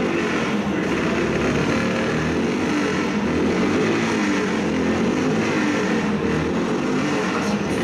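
Car engine running steadily at a high, even level.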